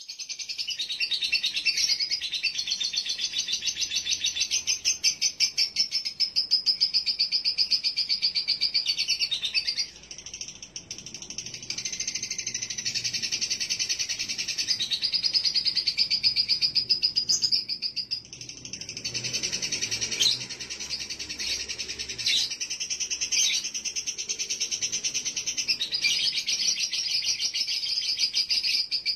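A male lovebird chatters in a long, shrill, rapid-fire trill: the 'ngekek' of a bird that has gone 'konslet', a state of heightened breeding arousal. The stream runs on with only brief breaks about ten and eighteen seconds in.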